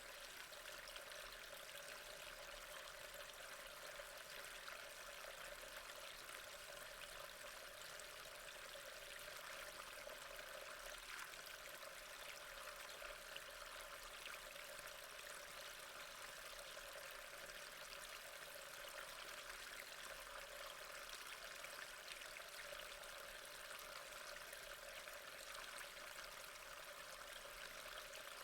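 Rain falling steadily, a soft, even hiss of water that holds unchanged throughout.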